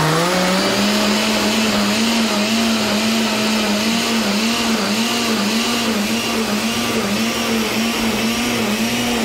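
Oster countertop blender running at speed, blending a hot chile sauce. The motor finishes spinning up in the first second, then holds a steady pitch that wavers slightly and regularly as the liquid churns.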